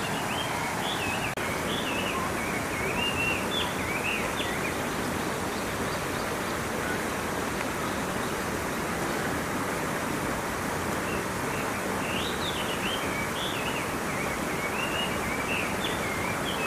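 Steady rush of running water, with a small bird chirping in quick runs near the start and again in the second half.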